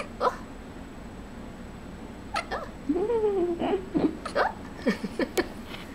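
Short, sharp hiccups repeating, with a drawn-out cry about three seconds in whose pitch rises and then falls, and a quick run of hiccups near the end.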